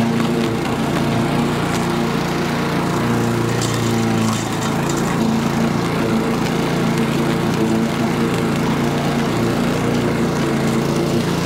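Husqvarna walk-behind mower's Honda engine running steadily at full throttle while mowing and mulching leaves. It holds an even governed speed with no surging or over-revving, now that the fault is repaired.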